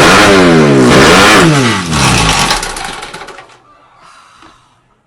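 Engine revving hard, its pitch rising and falling twice, then falling away to near silence about three seconds in.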